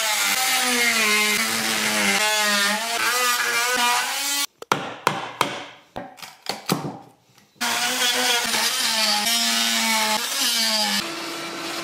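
Electric power tool working wood, its motor pitch dipping and recovering under load. It runs for about four seconds, stops for a few seconds of knocks as the work is handled, then runs again.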